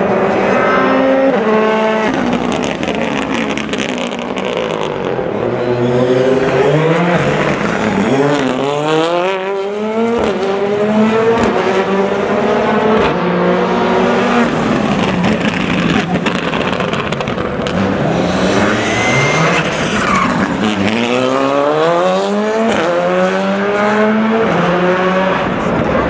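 Rally car engines revving hard as the cars race past, the pitch climbing through the gears again and again and dropping back between shifts and on lift-off.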